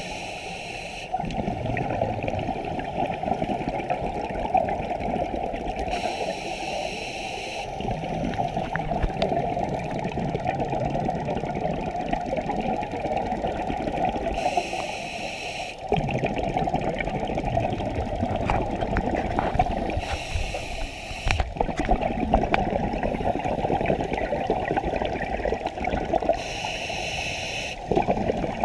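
Scuba diver's breathing through a regulator, heard underwater: five hissing inhales about six seconds apart, each a second or so long, between them the crackling, bubbling rush of exhaled air.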